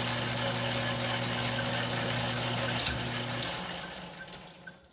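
Metal lathe running with a steady motor hum, then two sharp clicks about three seconds in, after which the hum stops and the lathe winds down to a stop.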